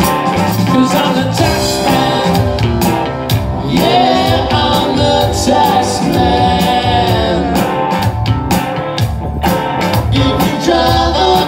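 Live rock band playing: electric guitars and drums, with a sung lead vocal through a PA, one note held and bent in the middle of the phrase.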